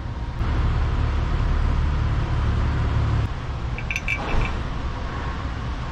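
A steady low rumble, with hand tools and bolts clinking on the metal of a fire pump's bearing housing as it is bolted up; one short, ringing metallic clink about four seconds in.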